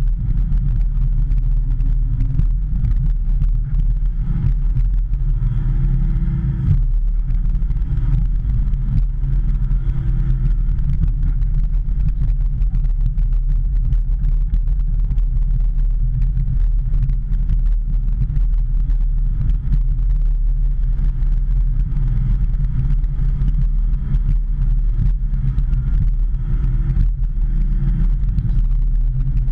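Hitachi ZX210 excavator's diesel engine running steadily while digging, with a higher layer of sound coming in for a few seconds about five seconds in and again near the end.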